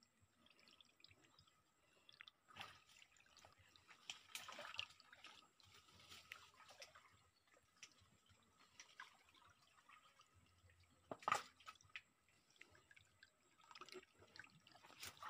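Faint drips and small splashes of stream water stirred by hands gathering freshwater snails in the shallows. There is one sharper knock about eleven seconds in.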